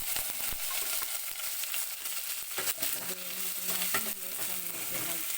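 Chicken pieces sizzling in hot oil in a pot with sautéed onion and garlic, stirred with a utensil that gives short scrapes and knocks now and then.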